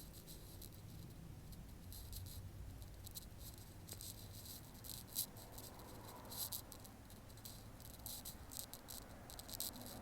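Faint, irregular high-pitched chirping ticks in quick clusters over a low steady hum.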